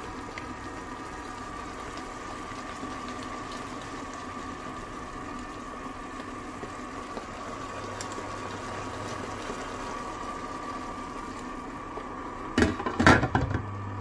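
Chicken drumsticks simmering steadily in sauce in a nonstick wok. Near the end, a few loud clattering knocks as a glass lid is set on the pan.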